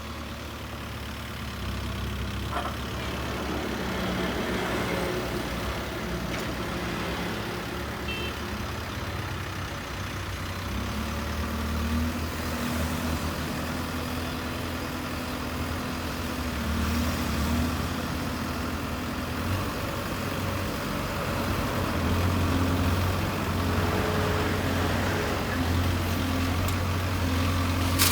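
Case backhoe loader's diesel engine running steadily, its pitch shifting slightly with load and growing somewhat louder after about twenty seconds.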